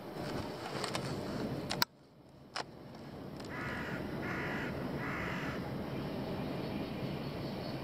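A crow cawing three times in quick succession, each caw a harsh call about half a second long, over steady background noise. A sharp click sounds about two seconds in, before the caws.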